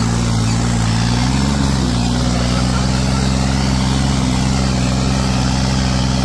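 John Deere 5210 tractor's three-cylinder diesel engine running under load while pulling an 18-disc harrow in D2 gear. Its pitch wavers briefly in the first two seconds, then holds steady.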